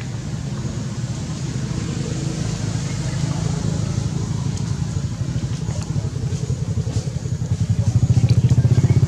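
Engine running steadily with a low, rapid throb, growing louder near the end, typical of a motorcycle passing close by.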